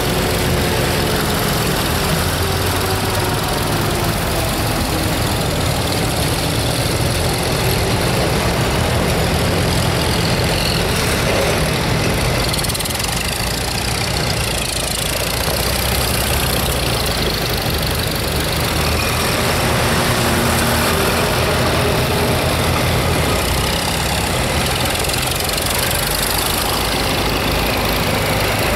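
Engines of a line of antique farm tractors running as they drive past one after another. A steady low engine drone, with an engine note sliding down in pitch as a tractor passes near the start.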